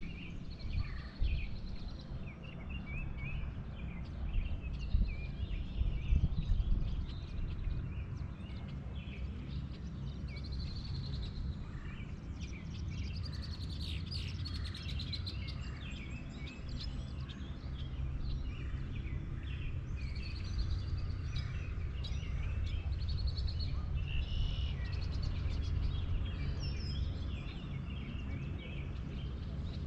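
Songbirds chirping and trilling on and off throughout, over a steady low rumble.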